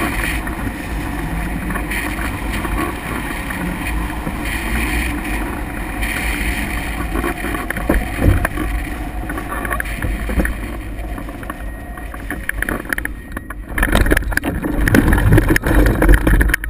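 Airflow rushing over a hang glider's camera microphone in flight, a steady low buffeting. In the last few seconds, as the glider comes down onto the grass, it turns louder and gustier, with a few knocks.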